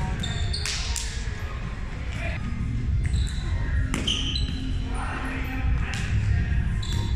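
Roundnet rally: several sharp slaps of hands striking the ball, with short high squeaks of sneakers on the hardwood floor, echoing in a large gym.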